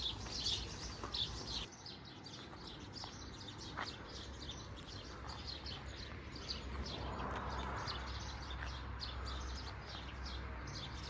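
Small birds chirping outdoors: many short, high chirps repeating quickly and unevenly throughout, over a faint low background rumble.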